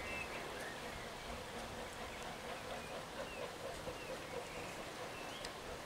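Quiet outdoor ambience: a steady hiss with a few faint bird chirps, near the start and again later.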